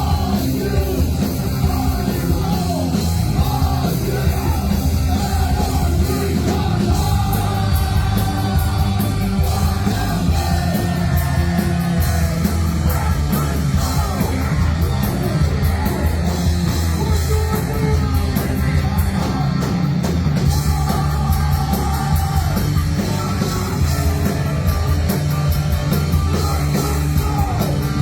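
Loud live rock band playing, with sung and shouted vocals over the band.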